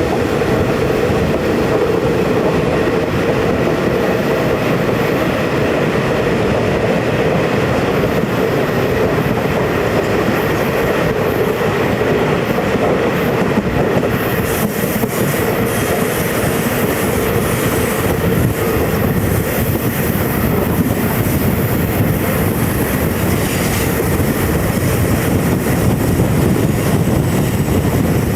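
Passenger train running on the rails, heard from an open vestibule: a steady rumble of wheels on track with clickety-clack. A brighter hiss comes in about halfway through.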